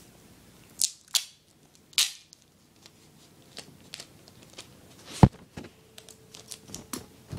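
Sticky tape ripped off the roll in three short pulls, then paper and tape being handled with light clicks and one sharp knock a little after five seconds in.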